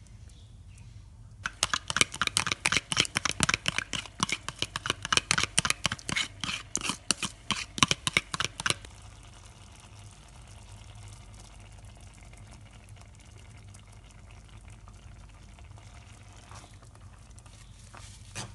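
Metal spoon stirring a thick minced pork and fermented soybean mixture in coconut milk in a saucepan: a rapid run of clicks and scrapes against the pan for about seven seconds. After that the mixture simmers quietly, with a couple of knocks near the end.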